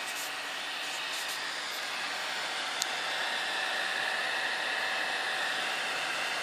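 RepRapPro Ormerod 3D printer running mid-print: a steady fan hiss with a faint stepper-motor whine that shifts in pitch, and a single sharp click about three seconds in.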